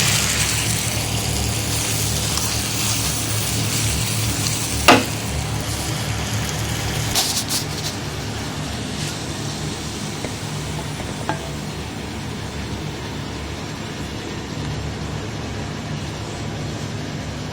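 Chicken, vegetables and cooked noodles sizzling in a hot pan as they are stirred, the sizzle slowly dying down. About five seconds in, a utensil strikes the pan once with a sharp clack, followed by a few lighter knocks later.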